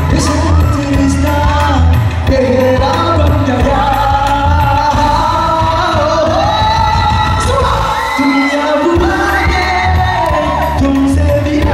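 Live band music with a male singer singing through the PA, over a strong bass line that drops out briefly about eight seconds in.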